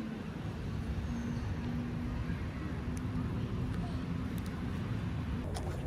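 Steady low rumble of distant road traffic, with a few faint clicks near the end.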